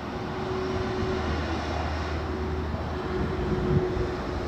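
Steady low hum over a rushing background noise, with a single short knock a little before the end.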